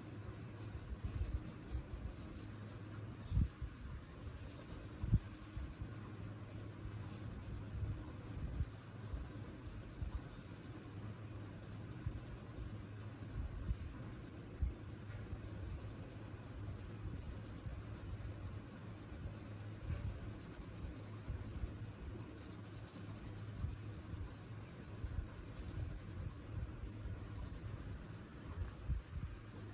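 Crayon scribbling back and forth on paper as a picture is coloured in, with a few soft knocks against the table, the loudest about three and five seconds in.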